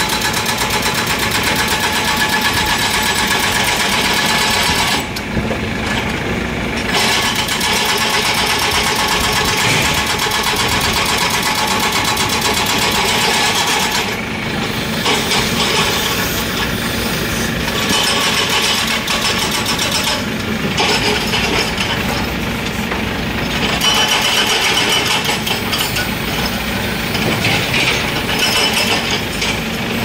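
Hydraulic breaker on a LiuGong 915E excavator hammering concrete, a rapid, steady run of blows broken by a few short pauses, with the excavator's engine running underneath.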